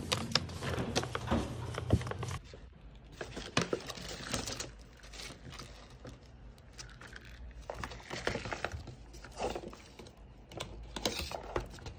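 Handling sounds of a paper takeaway bag and plastic bubble tea cups: the paper rustling and crinkling, with scattered light knocks and clicks as the cups are moved.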